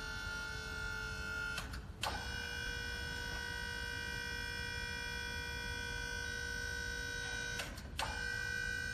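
Hydraulic pump of a truck-mounted snow plow whining steadily as the blade is moved. It cuts out twice for a moment, about two seconds in and near the end, each time with a click, then starts again slightly higher in pitch.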